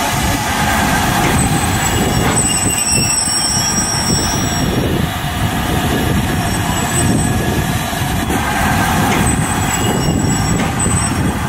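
LMS Black Five 4-6-0 steam locomotive No. 44767 standing with steam up, giving a steady hiss of escaping steam over a rough, uneven low rumble.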